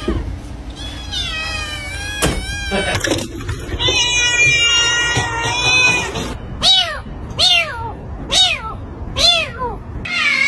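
Domestic cats and kittens meowing across several short takes: high, squeaky kitten cries, a long drawn-out meow, then five short meows about a second apart, each rising and falling in pitch.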